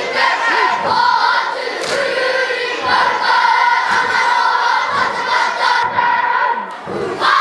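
A large group of children chanting a Māori haka in unison, their voices holding long notes together, with a low beat about once a second. The chant dips briefly near the end, then breaks into a loud group shout.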